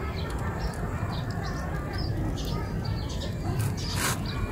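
Small birds chirping repeatedly in short high calls over a steady low rumble, with a brief rustle about four seconds in.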